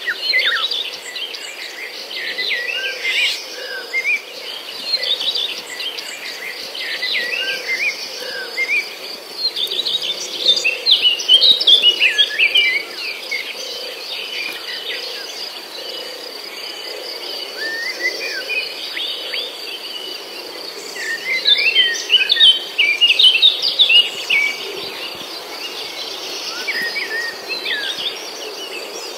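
Small birds chirping in rapid, busy clusters, over a steady high insect trill. The chirping grows loudest twice, about a third of the way in and again about three quarters through.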